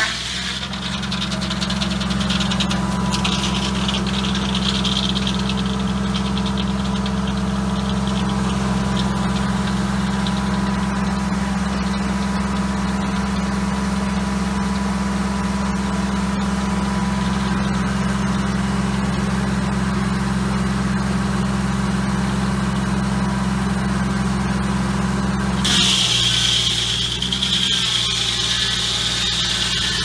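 Antique tractor engine running steady, belt-driving the spinning blade of a Foley Belsaw M14 circular sawmill with a faint whine while the blade turns free between cuts. About 26 seconds in, the blade bites into the oak log again: a high sawing hiss comes in and the engine note shifts as it takes the load.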